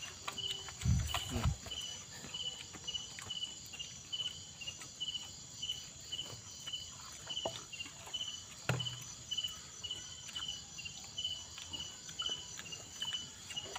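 Crickets chirping in a steady pulse, about two chirps a second, over a constant high insect drone. A few soft knocks and clicks of chewing and handling food come and go.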